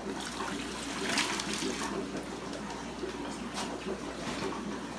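Water from a fish shipping bag pouring and splashing through a fish net into a plastic bucket, loudest between about one and two seconds in.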